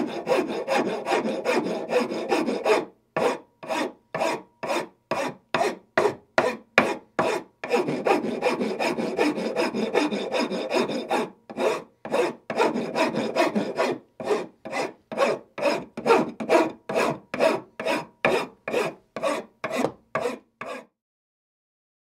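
A wood file rasping across wood. Stretches of fast, continuous filing alternate with slower, separate strokes at about two a second, and the filing stops about a second before the end.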